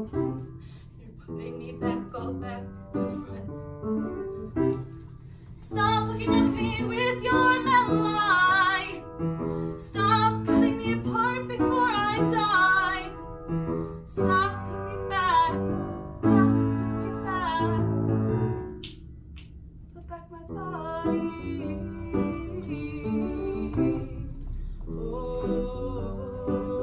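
Live piano accompanying female singing. The singing swells loudest with a wavering vibrato through the middle, drops away briefly, then resumes more quietly over the piano near the end.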